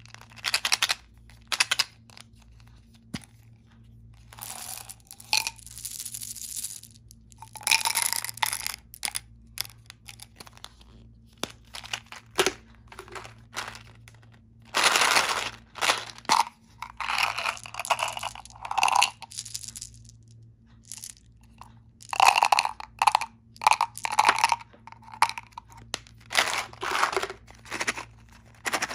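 Candy packaging being handled and opened by hand: plastic wrappers and a cardboard box crinkling, crunching and tearing in irregular short bursts, with sharp clicks between them.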